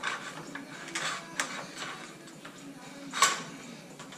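Hands and a small tool working on aluminium track-saw guide rails: scattered clicks and knocks of metal, the loudest about three seconds in.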